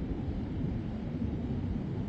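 Ocean surf breaking on a beach, a steady low rumble, with wind on the microphone.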